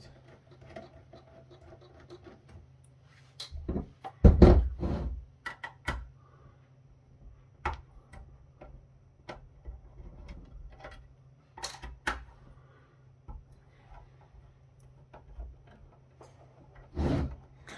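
A steel firewall case handled and set down on a desk: scattered clicks and knocks of metal against the work surface, with a louder thump about four seconds in and another near the end.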